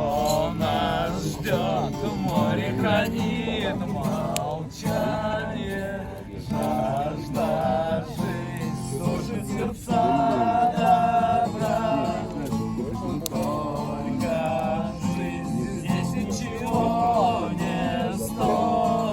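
Acoustic guitar song: a wavering melody line carried over steady guitar chords.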